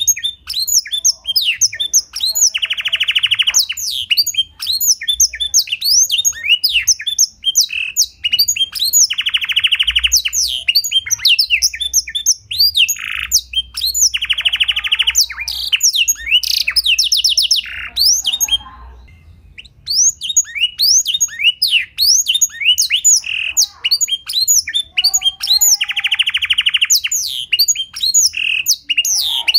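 Domestic canary singing a song filled with blackthroat (yellow-rumped seedeater) phrases: a fast stream of high, sweeping chirps broken four times by long, dry buzzing trills, with a brief pause a little past halfway.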